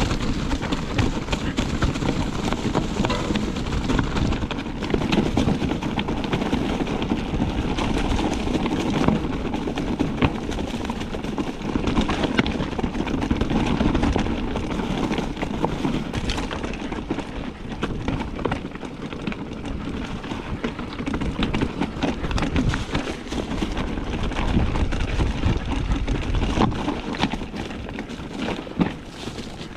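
Mountain bike riding down a rough, rocky trail: a continuous rattle and crunch of tyres over rocks and sticks, with many small knocks from the frame and drivetrain, over a steady low rumble.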